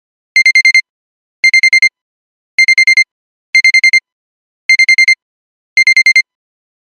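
Digital alarm clock beeping: bursts of five quick high-pitched beeps, repeating about once a second.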